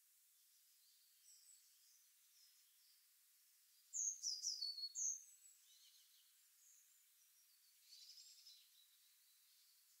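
Small songbirds calling. A loud burst of rapid, high-pitched chirps comes about four seconds in, and a softer run of chirps near the end, with faint scattered calls between.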